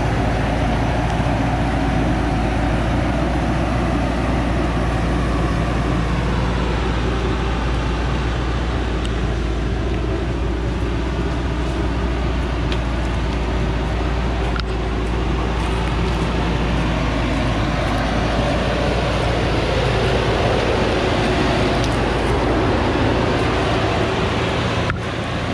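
Diesel engine of a Thaco Forland truck running steadily under heavy load as it climbs a steep dirt track with a full load of acacia logs.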